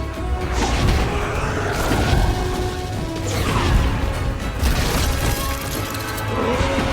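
Dramatic film score music with dragon roars and crashing impacts from a dragon fight over it. Falling roar-like sweeps come about three seconds in and again near the end.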